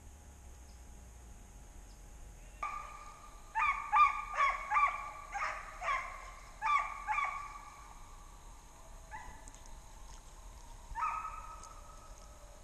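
Deer hounds baying on the trail: a run of about eight short, pitched calls at about two a second, then a few weaker calls later.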